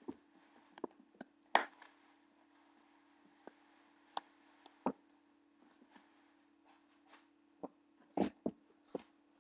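Scattered soft thumps and scuffs of a pitbull puppy and a person's hands tussling on a carpeted floor, with the loudest knocks about one and a half seconds in and near the end. A faint steady hum runs underneath.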